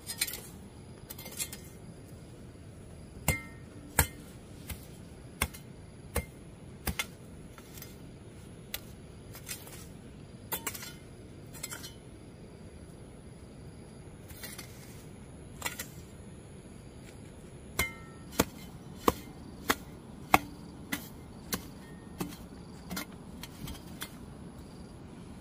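Blows of a hand tool: a series of sharp knocks, several in runs about every two-thirds of a second with pauses between, some ringing briefly.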